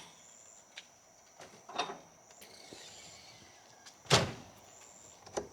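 A vehicle door slams shut about four seconds in, after a few lighter knocks and clicks, with a smaller knock near the end. Insects keep up a steady high trill throughout.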